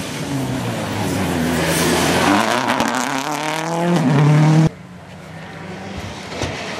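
Rally car engine at full throttle, its pitch and loudness rising steadily as the car comes closer, then cut off suddenly about four and a half seconds in; a quieter engine follows.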